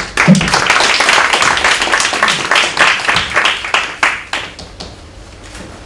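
A roomful of a few dozen people applauding, a patter of hand claps that thins out and dies away about four to five seconds in.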